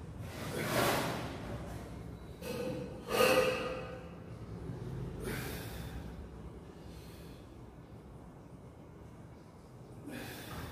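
A man breathing hard with the effort of lifting a barbell: a series of forceful breaths a second or two apart, the loudest a little after three seconds in.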